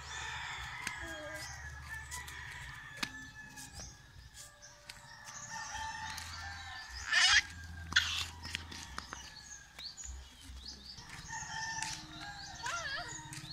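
Roosters crowing, drawn-out calls repeated through the scene, with a short, louder high-pitched cry about seven seconds in.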